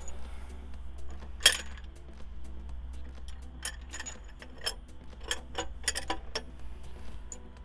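Metal tools clicking and clinking on a diesel engine block deck as a liner hold-down bar and dial indicator are set in place. One sharp clink comes about one and a half seconds in, and a quick run of clicks follows a few seconds later. A steady low hum and faint music run underneath.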